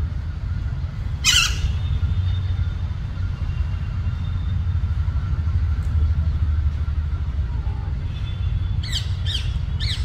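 Alexandrine parakeets squawking: one loud, harsh screech about a second in, then three short calls in quick succession near the end, over a steady low rumble.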